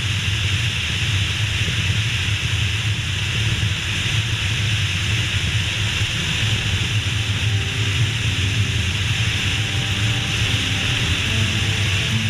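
Steady riding noise on a motorcycle: wind rushing over the microphone over a low drone of engine and road. About halfway through, faint music starts to come in under it.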